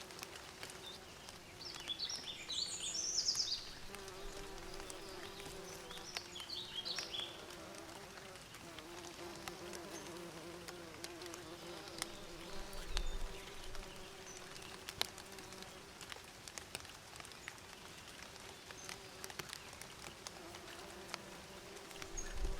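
Bees buzzing steadily, the hum wavering slightly in pitch as they move about. Short high bird chirps break in twice, at about two to three and a half seconds in and again at about six to seven seconds.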